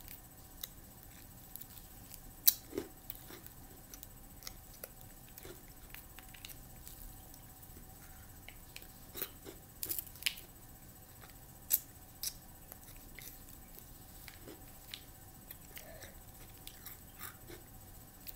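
Sporadic small clicks and crinkles from a freezer pop's plastic sleeve being squeezed and handled while it is eaten, with a few louder clicks now and then.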